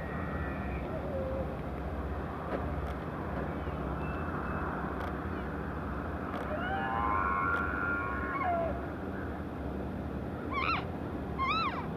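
Elk calling: a long rising, squealing call midway, then short high arching chirps and mews near the end, over a steady low rumble.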